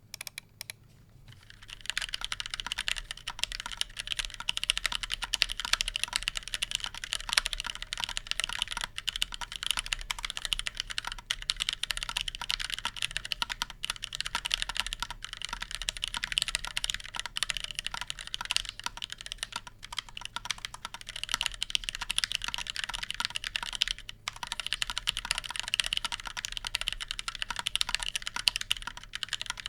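Fast, continuous typing on a Kemove K68SE mechanical keyboard, a dense run of key clacks that starts about a second and a half in, with a brief lull late on.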